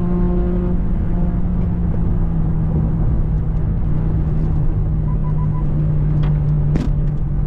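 Car driving at highway speed, heard from inside the cabin: steady low road and engine rumble with a constant low drone. Three short faint beeps come about five seconds in, and a sharp click near the end.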